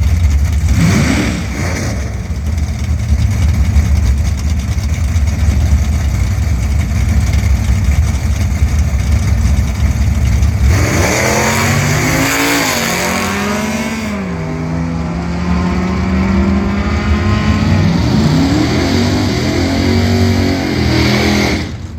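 Drag car's engine running with a loud low rumble. From about ten seconds in its note becomes clearer, falls, holds steady for a few seconds, then rises again near the end.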